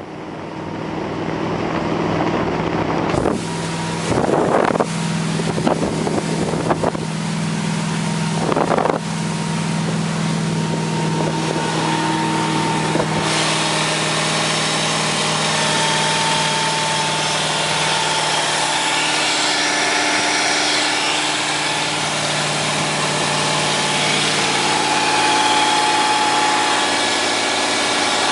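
The inboard engine of a 1995 Correct Craft Sport Nautique ski boat running steadily during an engine run test. Several brief bursts of noise come in the first ten seconds. The engine's pitch rises slightly near the end.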